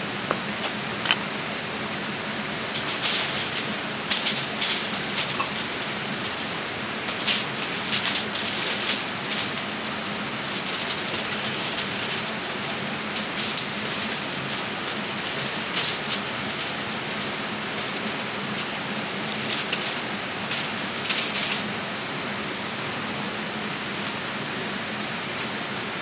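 Steady rush of running stream water, with irregular sharp rattling clicks over it from about three seconds in that stop shortly before the end.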